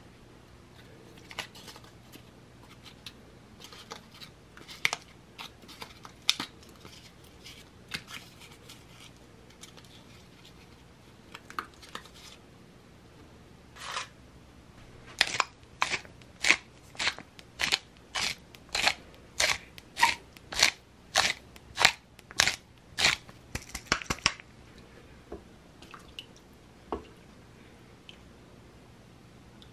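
Wooden spoon stirring and scraping against the sides of a stainless steel electric pressure-cooker pot full of soup. There are a few scattered scrapes at first, then a steady run of about two strokes a second from about halfway through until near the end.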